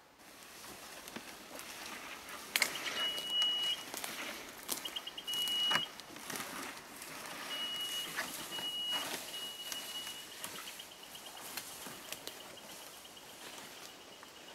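GDD Beep Mat prospecting detector beeping as it is dragged over ground: single high held beeps at first, then runs of short rapid beeps, rapid near the end, among scattered knocks and rustles. The beeps signal conductive or magnetic mineralization under the mat, and the faster they come, the closer the material.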